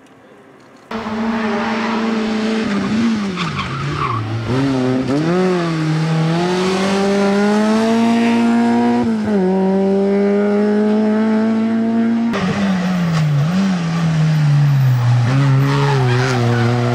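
Rally car engine under hard acceleration, its pitch climbing and dropping sharply again and again as it shifts gear and lifts off, over tyre skid noise. It starts loud about a second in, and the engine sound changes abruptly about twelve seconds in.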